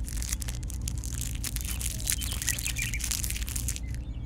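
Dry, crumbly soil crunching and crackling as a metal-tipped tool is dug into it, a dense irregular crackle that stops shortly before the end. A few faint bird chirps follow.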